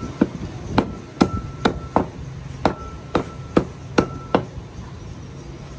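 Butcher's cleaver chopping beef on a wooden log chopping block: about ten sharp chops, roughly two a second, in two runs with a short pause between them. Some chops leave a brief metallic ring from the blade. The chopping stops a little past four seconds in.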